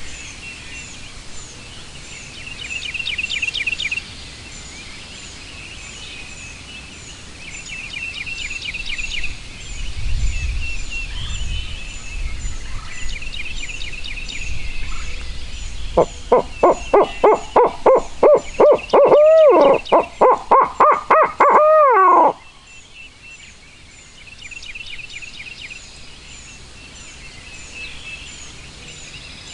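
Loud barred-owl hooting: a fast run of about a dozen short hoots, then a few longer notes that rise and fall, stopping suddenly. Songbirds trill over and over in the background.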